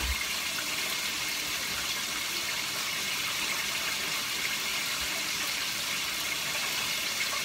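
Steady hiss of chopped cabbage cooking in liquid in a pot on the stove while it is stirred, with a soft low bump at the start and another about five seconds in.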